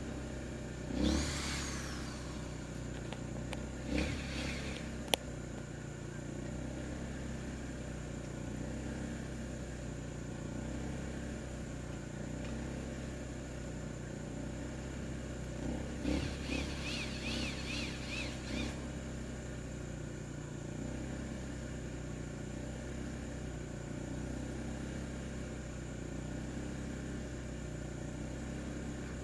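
Chickens calling now and then over a steady low hum: a short call about a second in, another near four seconds, and a run of quick repeated chirps from about sixteen to nineteen seconds, with one sharp click near five seconds.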